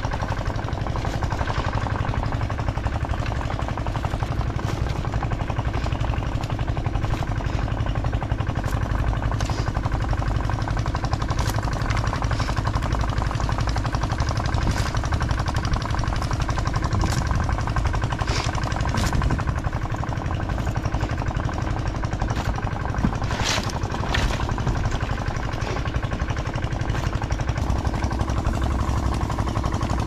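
An engine running steadily with a low, even hum. A few short clicks and rattles come from crawfish being sorted by hand in a plastic crate.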